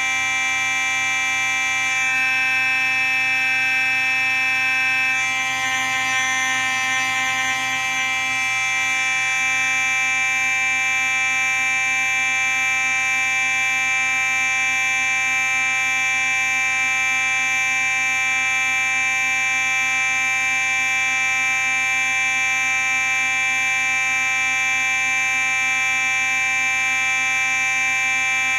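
Simplex 4903-9838 fire alarm sounding continuously: one unbroken, steady, rich alarm tone with no pauses, slightly rougher for a few seconds about five seconds in.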